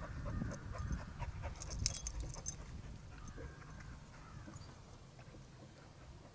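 A dog whimpering faintly, with a short jingle of metal, like collar tags, about two seconds in.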